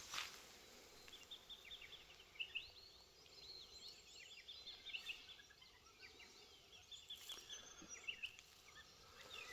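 Faint birdsong from several small birds, with quick, overlapping chirps and twitters.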